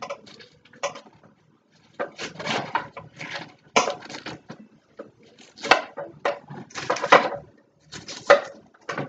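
Baby spinach leaves rustling as handfuls are packed down into a blender jar, in short irregular bouts with brief pauses.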